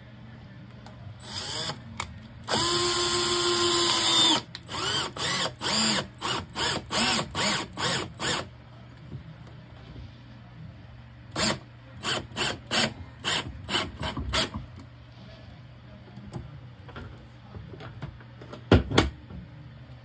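Cordless drill driving screws into a door closer's mounting holes. There is one longer steady run of the motor that winds down, then runs of short trigger pulses, about two a second, as the screws are seated. Two loud knocks come near the end.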